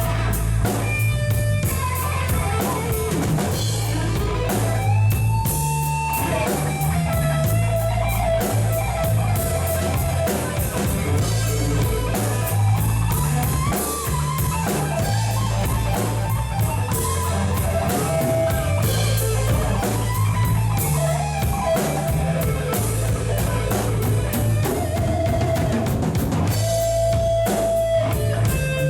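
Rock band music: electric guitar with bass and a drum kit, a sustained lead guitar line over a steady beat.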